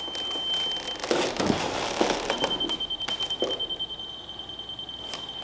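A steady high-pitched electronic tone that stops about a second in and comes back as fast, even beeping. In the gap, several loud knocks and scrapes of wood.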